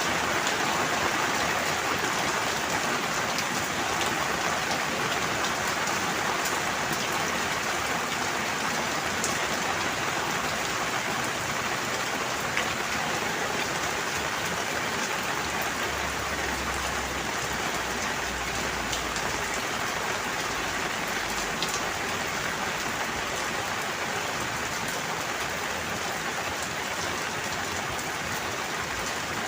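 Steady rain falling, an even hiss with scattered individual drops ticking through it. A faint low rumble comes in for a few seconds a little past the middle.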